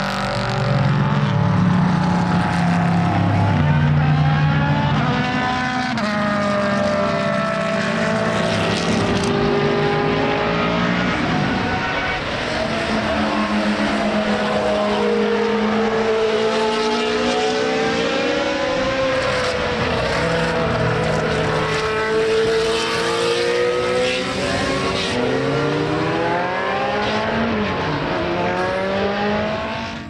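Several historic racing cars on track, their engines overlapping and rising and falling in pitch as they accelerate and brake past.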